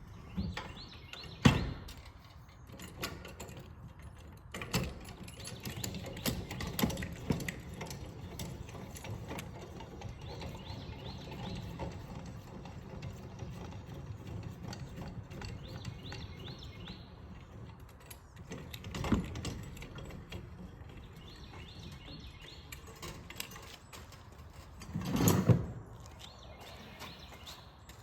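Trailer jack being worked by hand: a steady ratcheting, geared rattle, with a few louder metal knocks, the loudest near the start and another near the end.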